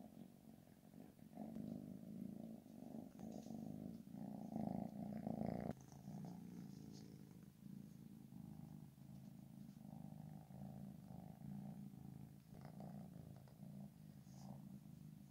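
Tabby kitten purring steadily right by the microphone, the purr swelling louder for a second or so about four seconds in.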